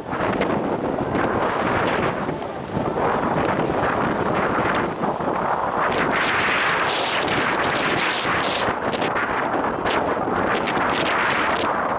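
Strong gusty wind buffeting the microphone: a continuous rumbling roar that swells and eases, with crackling bursts of buffeting.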